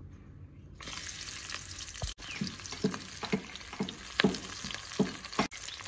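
Sliced onions and green chillies sizzling in hot oil in a steel kadai; the sizzle starts suddenly about a second in. Through the second half a spatula stirring knocks against the pan about twice a second.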